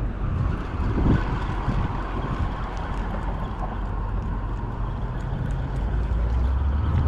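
Wind buffeting the camera microphone, a steady rumbling rush. A low steady hum, like a distant boat engine, comes in about four seconds in and grows stronger near the end.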